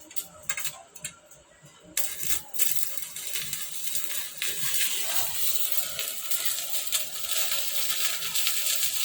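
Stick welding with a Yamato 200-amp inverter welder: a few light taps, then about two seconds in the electrode arc strikes and burns with a steady crackling sizzle.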